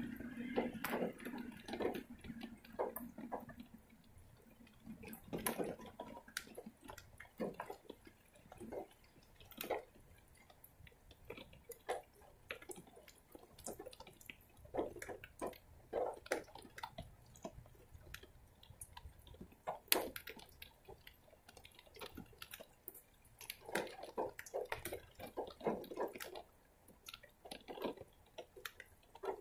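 Rainwater dripping irregularly, a few drops a second, with uneven spacing and loudness.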